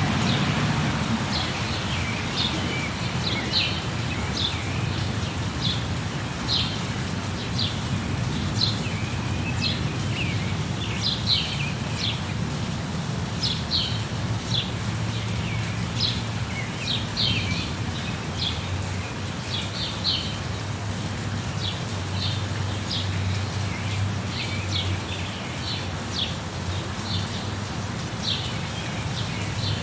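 Birds chirping in short calls that drop in pitch, one or two a second throughout, over a steady low background rumble.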